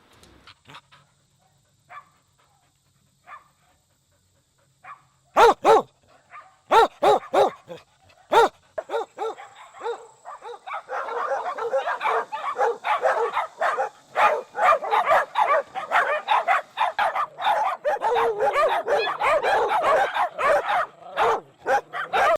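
Dogs barking: a few loud single barks, then from about eleven seconds in a continuous chorus of many dogs barking over one another.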